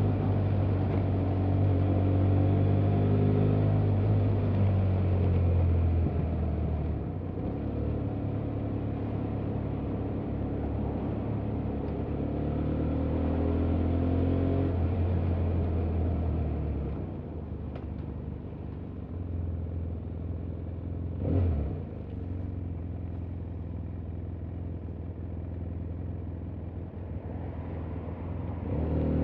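BMW F800GT's parallel-twin engine at low speed, pulling with gently rising revs twice, then running lower and quieter off the throttle for the last ten seconds or so. A brief louder noise comes about two-thirds of the way in.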